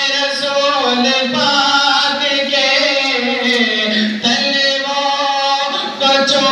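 A man singing a naat, an Islamic devotional poem, unaccompanied into a microphone, in long held notes with brief breaks about four seconds in and near the end.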